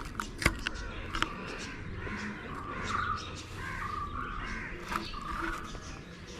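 Crows cawing, a run of harsh calls repeating one after another, with a couple of sharp knocks in the first second or so.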